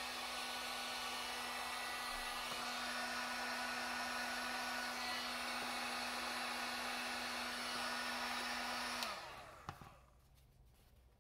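Drill Master heat gun running steadily, a rush of blown air with a steady motor hum, heating EVA foam to shape it. About nine seconds in it is switched off and its fan winds down, leaving a few faint handling clicks.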